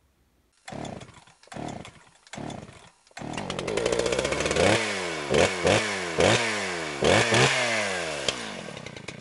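Chainsaw being pull-started: three short pulls on the starter cord, then the engine catches about three seconds in and is revved in a series of quick blips, each rev sliding back down.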